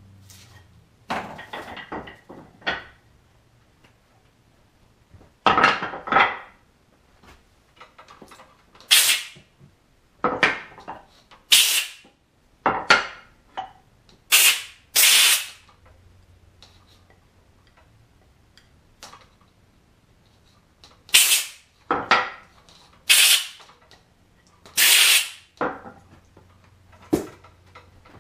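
Turned hardwood chair legs knocking against a wooden chair seat and workbench as they are handled and laid down: a series of sharp wooden knocks at irregular intervals, some in quick pairs, with a quiet stretch in the middle.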